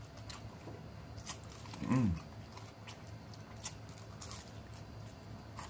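People chewing and biting into chicken wings close to the microphone: scattered wet clicks and smacks of eating, with one short falling hum about two seconds in.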